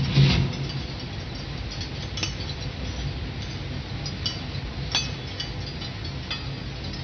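Experimental electronic track: a low rumbling drone with scattered small glassy clinks and ticks, and a louder burst right at the start.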